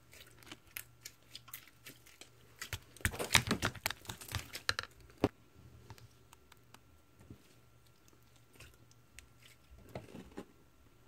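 Slime being pressed and squished by hand, giving off crackling clicks and pops. The clicks come thickest about three to five seconds in, then thin out to scattered pops.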